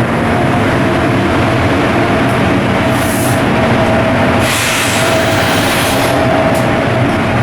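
Large marine diesel engine running steadily, a loud constant drone with a steady hum in it, with a burst of hissing about halfway through.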